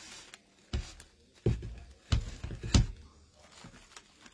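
Handling noise from ribbon and starched fabric loops being pressed and bunched by hand onto a wooden bow maker: four dull thumps over about two seconds, the last the loudest, with soft rustling between them.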